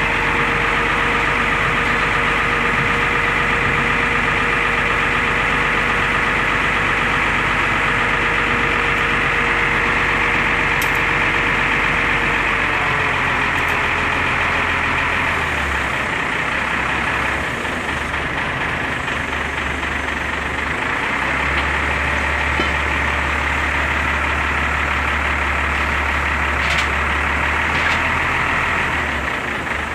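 Forklift engine running steadily, with a steady whine that drops in pitch about halfway through and a deep hum that comes and goes.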